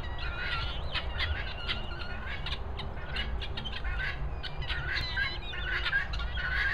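A flock of helmeted guineafowl calling: many short, overlapping squawking and chattering calls in quick succession, over a steady low rumble.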